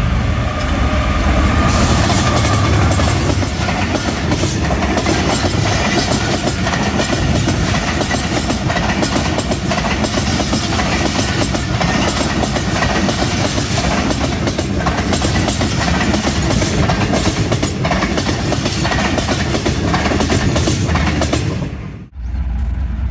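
A passenger train, a diesel locomotive followed by its coaches, passing close by on the adjacent track. The wheels make a steady clickety-clack over the rail joints above a continuous rumble.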